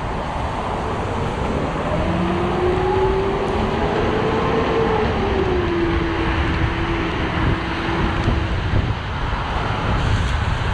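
Steady traffic and road noise, with wet-tyre hiss and wind, heard from a bicycle riding in rain-soaked city traffic. A whine rises and then falls in pitch over about six seconds, starting about two seconds in.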